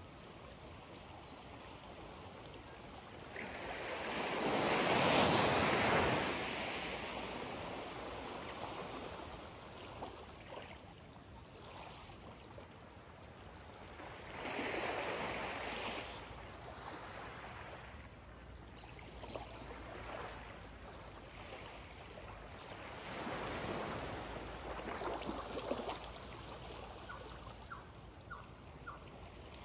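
Small waves lapping onto a sandy beach of calm water, washing in three times: the biggest about five seconds in, smaller ones about halfway and near the end.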